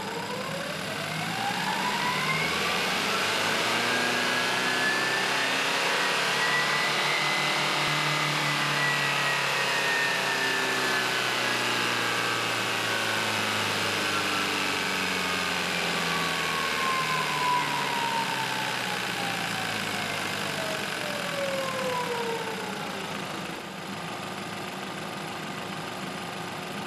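BMW four-cylinder turbocharged petrol engine running on a test bench, its revs climbing steadily over the first several seconds, holding high, then falling back over about eight seconds.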